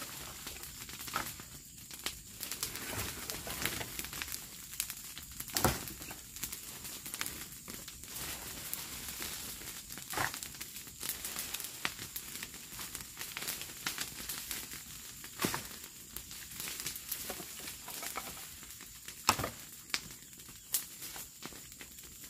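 Rustling and crackling with scattered sharp knocks, a few louder than the rest: scrap building wood and dry debris being handled and moved.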